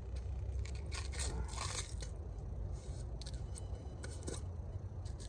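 A few light scrapes and clicks from a break-barrel air rifle being handled, over a steady low rumble.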